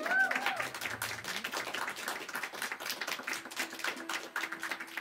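Audience applauding after a song, dense irregular clapping that starts with a short cheer and thins out toward the end. A low held instrument note comes in about two-thirds of the way through.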